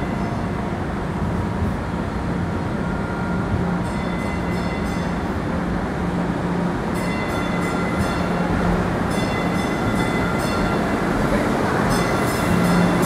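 MBTA Green Line light-rail train heard from a rider's position, running with a steady rumble and a low hum. From about four seconds in, brief high-pitched squealing rings in and out.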